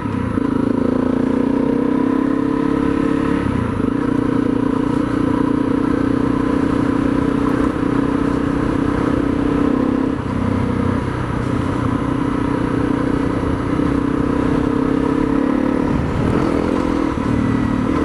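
Single-cylinder Honda dual-sport motorcycle engine running steadily at cruising speed on a gravel road, the note dipping briefly a few times as the throttle eases and picks up.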